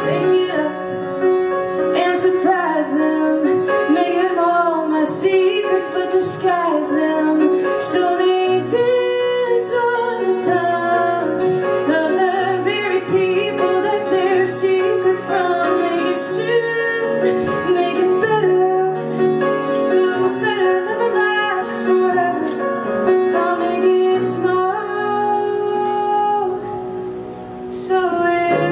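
A woman sings a musical-theatre song into a microphone, accompanied by grand piano. The music drops away briefly near the end before the voice comes back in.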